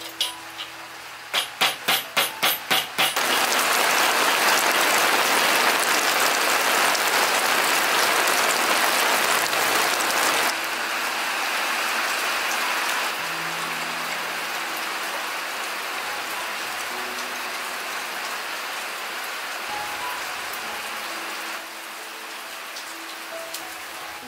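Steady rain falling, loudest for several seconds and then easing off. Just before the rain swells, there is a quick run of seven sharp knocks, about four a second.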